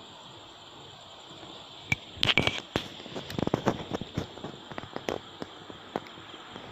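A thin stream of cooking water trickling from a tipped pot into a steel bowl as boiled fish roe is drained, with irregular clicks and knocks of handling starting about two seconds in.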